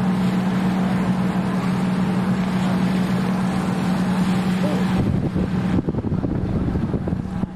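Tour boat's engine droning with a steady low hum, and wind rumbling on the microphone. About six seconds in, the hum drops out and the wind rumble is left.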